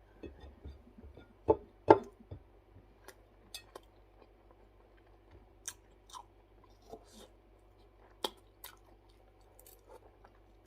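A person chewing food, with scattered small crunches and clicks and two louder knocks about one and a half and two seconds in.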